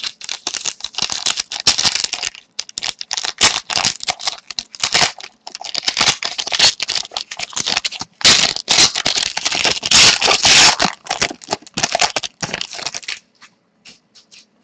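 Clear plastic card sleeve crinkling and rustling in quick bursts as a trading card is handled in it, dying away to a few faint clicks about a second before the end.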